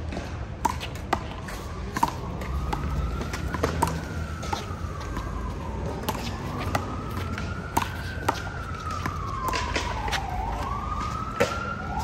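Emergency-vehicle siren wailing slowly up and down, rising and falling about every four seconds, with sharp smacks of a rubber handball striking gloved hands and the wall throughout the rally.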